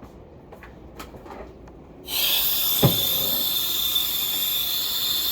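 A machine switches on about two seconds in and runs with a steady high hiss and whine, with a single dull knock a second later.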